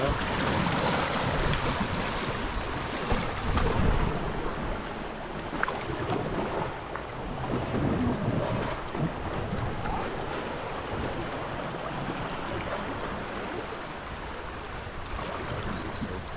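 River water rushing and splashing around an inflatable raft, with wind buffeting the microphone; loudest in the first few seconds.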